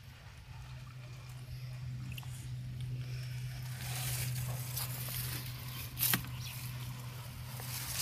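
Light rustling and small handling clicks, with one sharp click about six seconds in, over a steady low hum.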